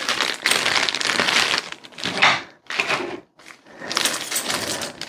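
Clear plastic bag of small mounting hardware crinkling as it is handled by hand, in irregular spells with brief pauses.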